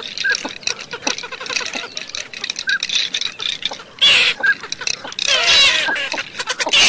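A flock of teal ducks calling: a dense chatter of short whistled calls, with louder bursts about four seconds in and again a second later.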